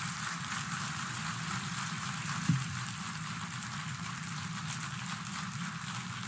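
Audience applauding steadily, with a single short thump about two and a half seconds in.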